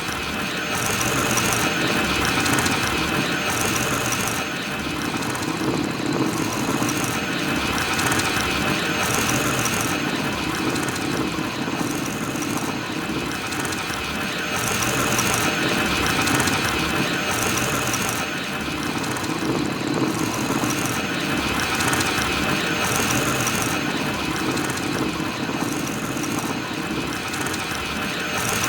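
BB-8 droid rolling at normal speed: a continuous mechanical whirring and rattling of its rolling spherical body, swelling and easing every few seconds.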